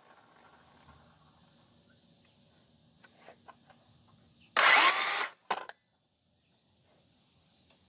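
DeWalt 20V Max 6-1/2 in. brushless cordless circular saw run in a short trigger burst of under a second about halfway through, then a second, briefer blip. Its blade is loose on the arbor, and the saw doesn't sound good to its user.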